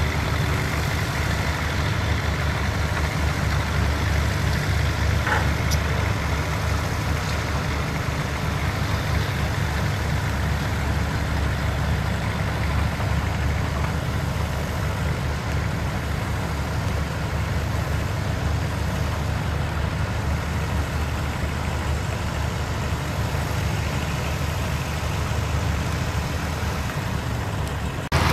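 Diesel engines of heavy construction machinery running steadily, a constant low rumble, with a brief click about five seconds in.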